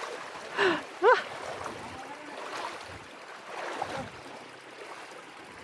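Shallow river running over stones, with the splashing of people wading through it while pushing mountain bikes. A short shout, its pitch rising and falling, comes about a second in.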